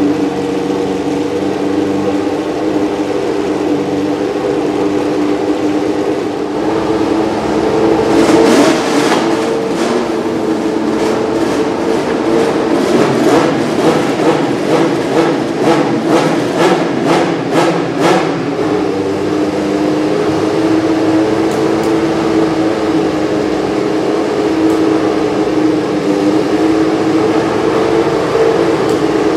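Cosworth DFV V8 of a 1970s Formula 1 car idling during warm-up. From about eight seconds in it is blipped hard in a quick string of short revs, roughly one or two a second, for about ten seconds, then settles back to a steady idle.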